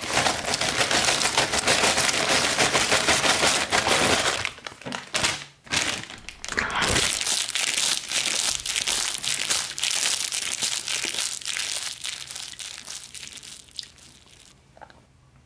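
Potato chips are poured and shaken out of a crinkling foil chip bag into a stainless steel pot, making a dense crackling rustle. It dips briefly twice, about four and a half and five and a half seconds in, then tapers off over the last few seconds.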